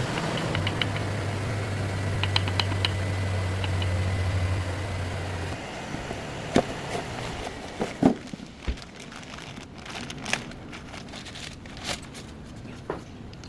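Car engine running steadily for about five seconds, then cutting off, followed by scattered clicks and knocks.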